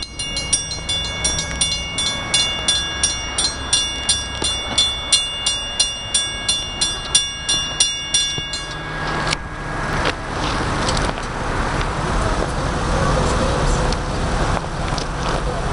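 Railroad grade-crossing warning bell ringing about three strikes a second, stopping suddenly about nine seconds in. Then a growing rumble of an approaching NJ Transit train, getting louder toward the end.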